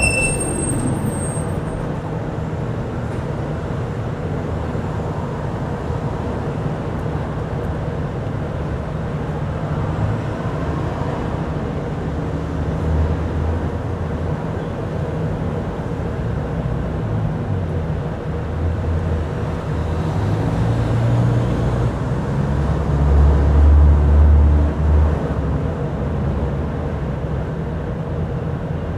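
Cabin noise of a 2001 Gillig Phantom electric trolleybus under way: a steady hum from its electric traction motor, rebuilt from old AMG trolleybuses, over a low road rumble. The rumble swells a few times, most strongly about three-quarters of the way through.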